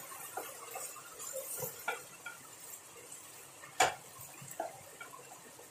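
Spatula stirring and scraping an egg-and-okra stir-fry in a pan: soft scrapes and light taps, with one sharper knock a little under four seconds in.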